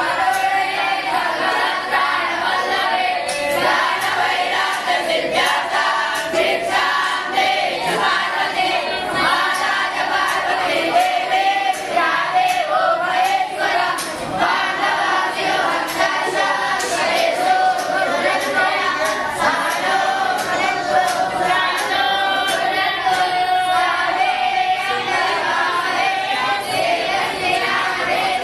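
A group of voices singing together in unison without pause, a sustained devotional chant.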